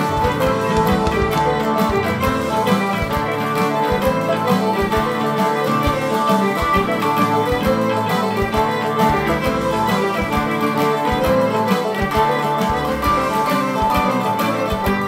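Fiddle playing a jig, a steady stream of quick bowed notes in the lilting jig rhythm.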